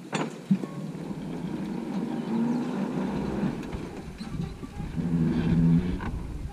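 MTZ tractor's four-cylinder diesel engine running as the tractor pulls away across the field, a couple of knocks at the start, then the engine note swelling louder twice.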